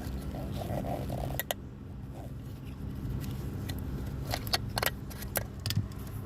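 Scattered sharp clicks and light scrapes of hand work on a car's steering column, unlatching a locked wiring connector, with a cluster of clicks in the second half, over a steady low hum.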